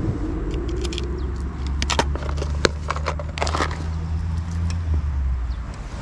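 An engine humming steadily at a low pitch for a few seconds, then fading near the end, with scattered sharp clicks over it.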